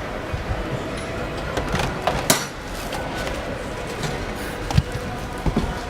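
Car assembly-line noise: a steady mechanical din with a few sharp knocks, the loudest about two seconds in and near the end.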